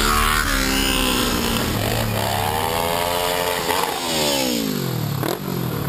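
Motorcycles riding past one after another, each engine's pitch falling as it goes by; a second pass swells up in pitch through the middle and drops away steeply toward the end.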